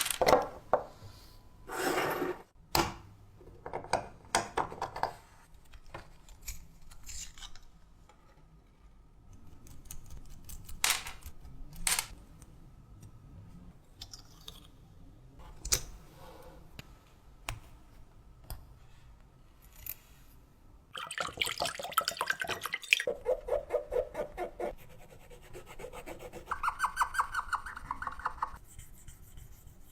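Small metal parts being handled and worked by hand: scattered clicks and taps with soft rubbing. A dense run of rapid clicking comes about two-thirds of the way in, and a short fast rattling buzz comes near the end.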